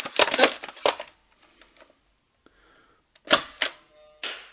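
Buzzbee Air Max 10 air-pressure dart blaster being pumped up, the last of 15 pump strokes going at about three a second until about a second in. About three seconds in it fires with a sharp crack, followed by a second click and a short hiss.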